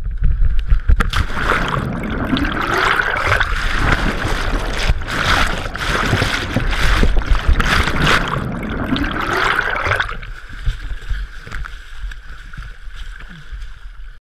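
Rushing, splashing water right at an action camera's microphone, with gurgling. It is loud for about ten seconds, then drops to a quieter steady water hiss.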